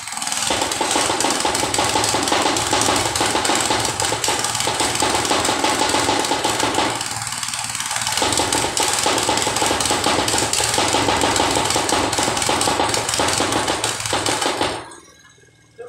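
Mikasa tamping rammer running at full throttle, its foot hammering rapidly down on a vertical pipe to drive it in. The pounding eases briefly about halfway through, then cuts off sharply about a second before the end.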